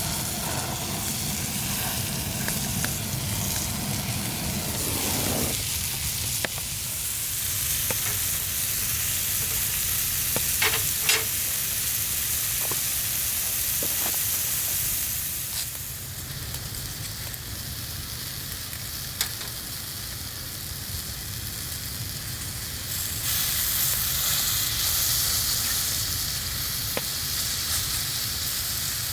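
Food sizzling in a frying pan, a steady hiss whose level shifts abruptly a few times, with a few light clinks of a utensil about ten seconds in.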